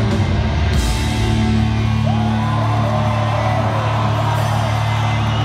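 Arena rock band playing live, bass and electric guitars over drums. About two seconds in the beat stops and the band holds a sustained chord, with whoops and yells over it.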